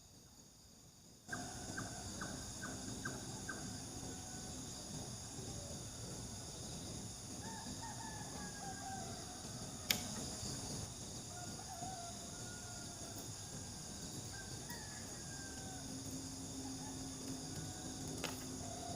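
Night crickets and insects trilling steadily over a low rushing noise, with faint gliding calls and one sharp click about ten seconds in. The sound comes in suddenly about a second in.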